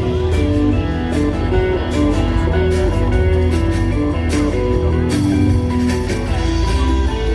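Loud show music: a guitar melody of held notes over heavy bass, with a regular drum beat.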